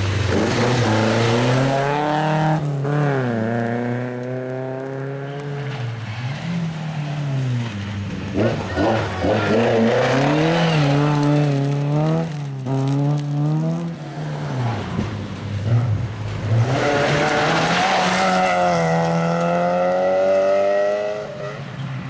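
Rally car engines at full throttle on a gravel stage, several cars in turn. The pitch climbs and drops sharply at each gear change.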